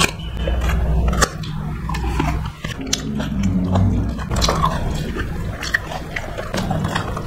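Close-miked eating: biting and chewing mouthfuls, with crunchy bites into a raw green chilli near the start and many wet mouth clicks and smacks throughout.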